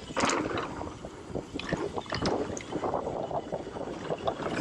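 Mountain bike ridden fast down a dirt trail: tyres on loose dirt and the bike's chain and frame rattling over bumps in many short irregular knocks, with wind buffeting the microphone.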